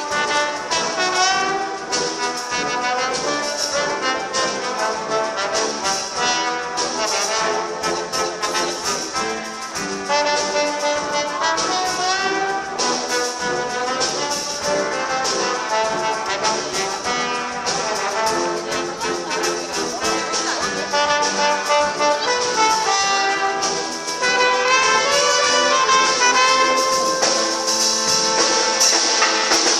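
Live band music with a full, brass-heavy sound, many held notes and moving melody lines playing continuously, growing a little louder in the last few seconds.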